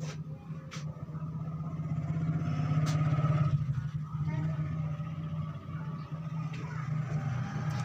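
Domestic cat purring steadily, a fast low rumble that swells for a couple of seconds near the middle, with a few faint clicks.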